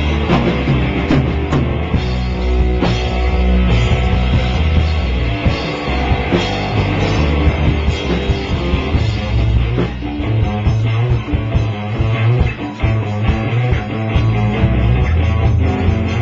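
Rock music with guitar and drums, loud and continuous.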